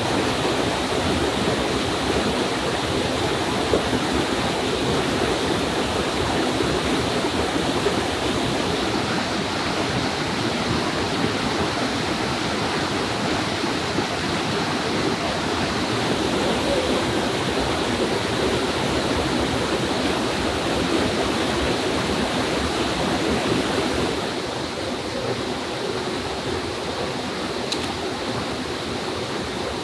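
Forest stream water running steadily over rocks, a continuous rushing; it becomes a little quieter about six seconds before the end.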